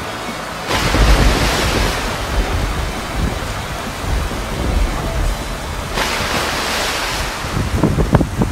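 Storm wind gusting with heavy rain, the gusts buffeting the microphone with a low rumble. The rushing surges about a second in and again about six seconds in.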